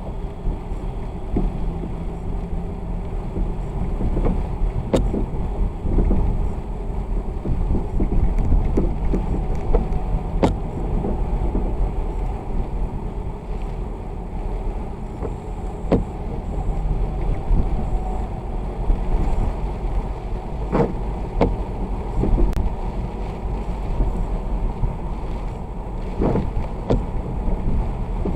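A vehicle driving on a wet road in the rain: a steady low rumble of road and engine noise, with scattered sharp ticks and knocks throughout.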